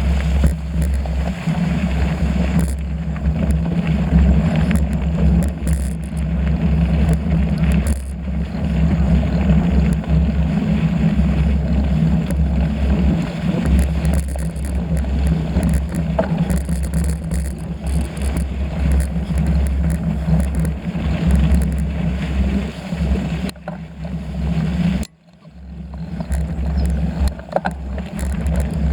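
Steady low rumble of wind buffeting the microphone during a bicycle ride. It drops out briefly near the end.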